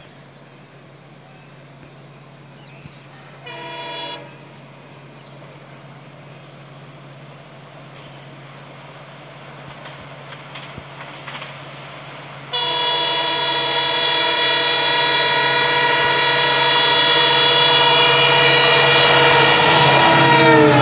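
EMD WDP4B diesel locomotive approaching at speed over a steady engine drone. It gives a short horn blast about four seconds in, then a long horn blast from about twelve seconds that grows louder and drops in pitch as the locomotive passes near the end.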